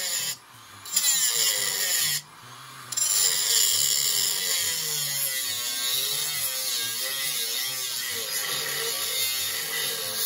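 Small angle grinder with a cutoff disc cutting a steel plate held in locking pliers: a steady, high grinding hiss. It breaks off briefly twice in the first three seconds, then runs on without a break.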